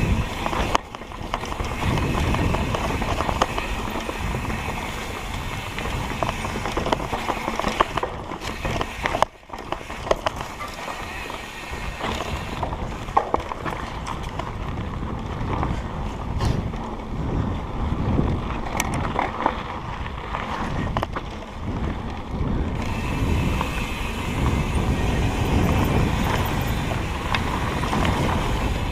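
Mountain bike being ridden over a rough dirt trail: tyre noise and the bike rattling over uneven ground, with irregular small knocks throughout.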